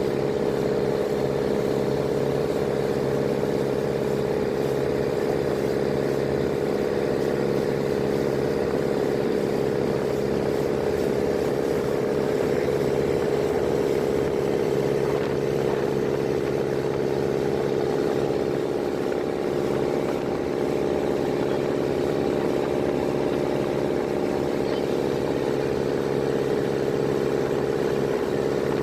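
An engine running at a constant speed, a steady drone that holds the same pitch throughout.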